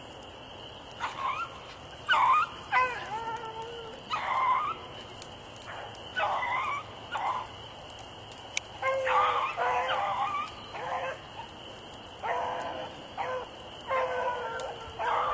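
Beagles baying, as hounds do when running a rabbit: a string of short yelps and longer drawn-out calls, repeated throughout.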